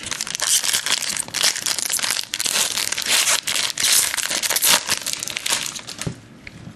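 Foil wrapper of a trading-card pack being torn open and crumpled by hand, a dense crackling that stops near the end.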